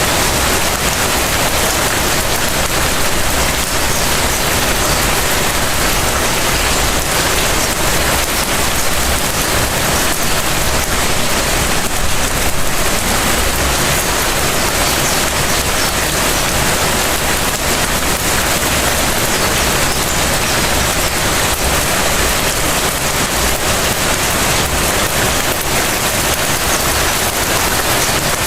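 Light rain falling steadily, drops pattering on surfaces in an even, unbroken hiss.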